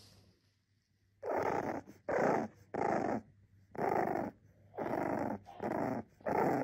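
Bulldog puppy making a run of short rough sounds, a little more than one a second, starting about a second in.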